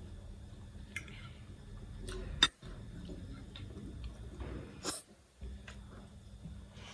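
Close-miked eating sounds of a person eating ramen: chewing and breathing, with a few sharp clicks, the loudest about two and a half seconds in.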